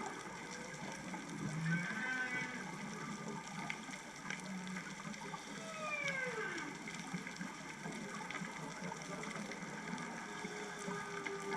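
Humpback whale song: drawn-out low moans, and about six seconds in a tonal call that falls in pitch, all over a steady crackling hiss.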